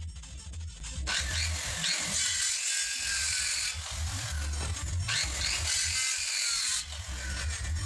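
Handheld electric circular saw cutting through a wooden board in two passes, the first starting about a second in and the second about five seconds in, each lasting two to three seconds.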